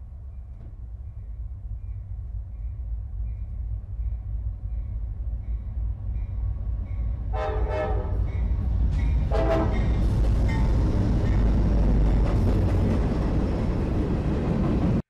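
Diesel freight train approaching and passing: a low locomotive rumble builds, then two horn blasts sound about seven and nine seconds in, the first longer than the second. Then comes the loud, steady rush and clatter of covered hopper cars rolling by. A faint, regular dinging runs under the rumble in the first half.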